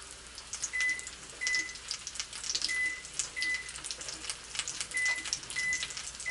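Almond-flour-crusted haddock fillets sizzling and crackling in hot coconut oil in a frying pan, with sharp pops throughout. Over it, a series of short high electronic beeps, mostly in pairs, as a kitchen timer is set.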